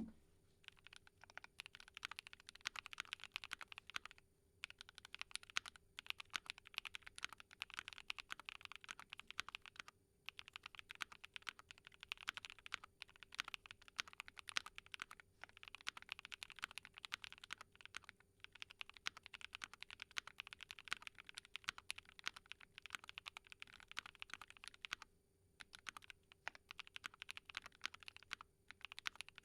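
Typing on a Keychron Q12 mechanical keyboard modded with SOTC linear switches, a POM plate, PE and Poron foam, and doubleshot ABS Cherry-profile keycaps. Rapid keystrokes come in runs of a few seconds, with brief pauses between them.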